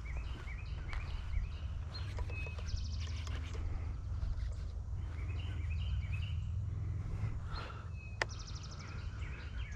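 Birds singing over a steady low rumble: a phrase of quick rising notes, heard twice, and a short fast high trill, also twice. A single sharp click comes near the end.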